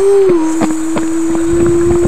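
Bus engine sound pulling away: a steady whine that climbs slowly in pitch, drops back once just after the start like a gear change, then holds, with scattered light clicks over it.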